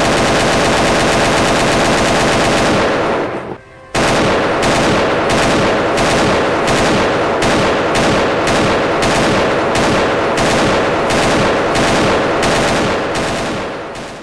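Machine-gun sound effect: long sustained bursts of automatic fire that break off briefly about three and a half seconds in, then resume and fade away near the end.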